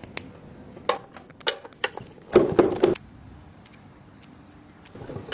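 Handling noise: a scatter of light clicks and taps, with a short rustling scrape about two and a half seconds in.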